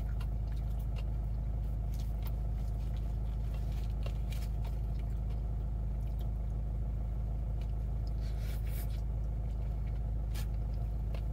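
Steady low hum of a car's engine idling, heard inside the cabin, with scattered short crunches and smacks of someone biting and chewing food close by.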